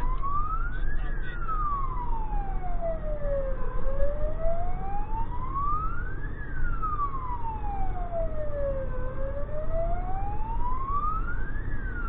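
Emergency truck's siren in a slow wail, rising and falling in pitch about every five seconds, heard from inside the cab over the low rumble of the truck's engine.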